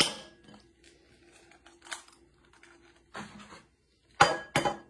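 Eggs being knocked against and cracked into a ceramic bowl: a sharp knock at the start, a few soft clicks, then two sharp knocks close together near the end.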